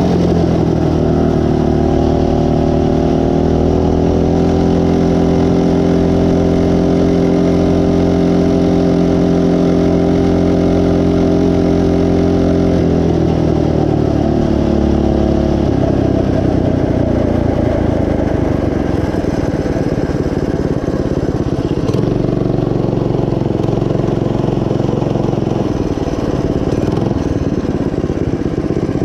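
Coleman CT200U minibike's single-cylinder engine running under way at a steady speed, then dropping in pitch about halfway through as the bike slows, and running lower and more unevenly after that.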